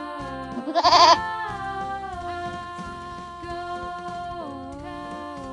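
A goat bleats once, a short quavering call about a second in, over steady instrumental background music.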